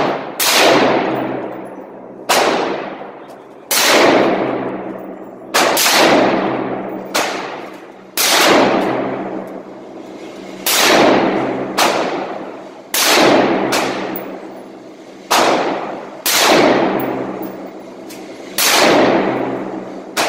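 Gunshots in an indoor shooting range: about fifteen sharp shots, roughly one every second or two with a few coming in quick pairs, each followed by a long echo ringing off the concrete lane.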